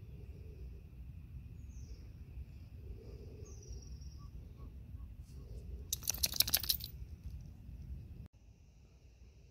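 Outdoor riverside ambience: birds chirping, with a few short high calls that slide down in pitch, over a low rumble. About six seconds in a loud, rapid rattle of clicks lasts under a second. The background drops off suddenly a little after eight seconds.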